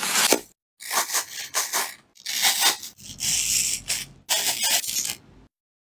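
Kitchen knife cutting and carving a crisp raw apple on a wooden board: crunching, scraping cuts in several short bursts with brief silences between them.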